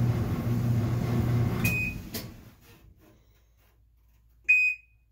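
Whirlpool Cabrio dryer running with a steady hum, then a short beep and click from its control panel, after which the hum dies away, showing the repaired dryer responding to its controls. Near the end the control panel gives one loud, short electronic beep.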